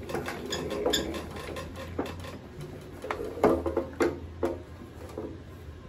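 Irregular knocks and clicks as a plastic cutting pad and die are run through and handled on a roller die-cutting machine.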